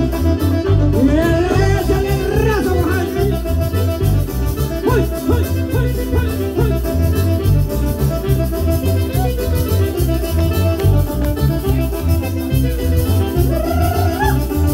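Loud Latin dance music with a steady bass beat, a voice singing over it in places.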